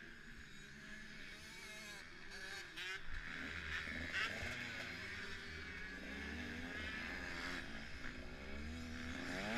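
Motocross bike engine, faint at first, then revving up about two seconds in as the bike pulls away, its pitch rising and falling as it goes through the gears and gets louder.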